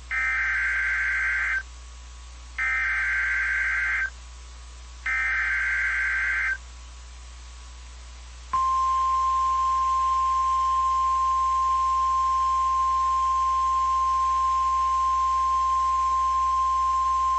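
Emergency Alert System SAME header: three short bursts of warbling two-tone data a second apart, then a steady single-pitch 1050 Hz weather-radio alert tone for about nine seconds. It signals that a National Weather Service warning is about to be read.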